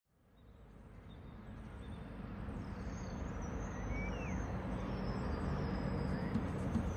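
Outdoor street ambience fading in from silence: a steady low rumble of traffic, with a couple of faint bird chirps about four seconds in.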